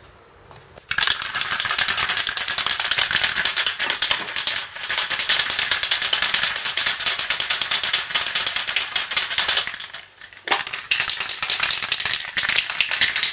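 Aerosol can of stove paint being shaken hard, its mixing ball rattling rapidly, with two short pauses.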